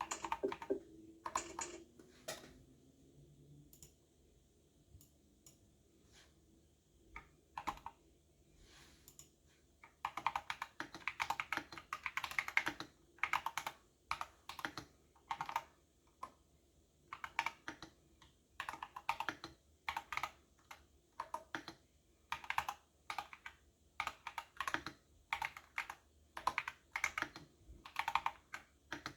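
Typing on a computer keyboard: scattered single key presses at first, then from about a third of the way in, fast runs of keystrokes in bursts of a second or two with short pauses between them.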